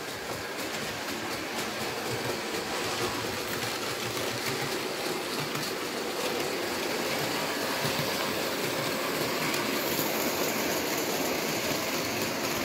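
Märklin H0 model freight train, a diesel locomotive pulling Ommi 51 open wagons, running steadily over metal model track. The wheels clatter and tick continuously, growing slightly louder near the end as the train passes close.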